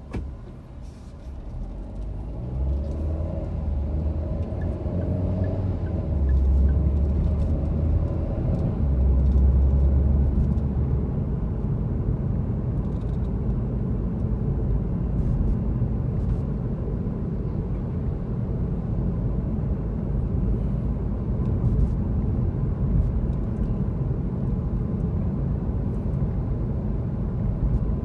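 Car pulling away and accelerating, its engine note rising over the first few seconds, then a steady low rumble of engine and road noise while driving.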